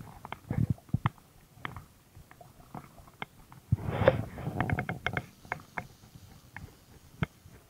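Handling noise on a chest-mounted action camera: a jacket sleeve rustling and brushing over it while a fly line is worked, with scattered sharp clicks and a longer burst of rustling about four seconds in.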